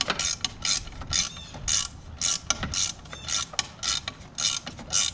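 Ratchet wrench tightening a fastener, its pawl clicking in quick runs on each back-swing of the handle, about two to three strokes a second.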